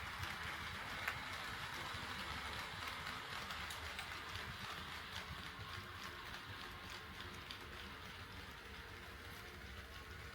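HO scale model train running on sectional track: a steady rolling noise from wheels and motor with scattered clicks over the rail joints, slowly getting quieter.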